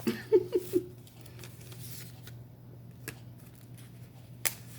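Tarot cards being handled and shuffled, with a few sharp card snaps about three and four and a half seconds in. A brief three-beat vocal sound comes near the start.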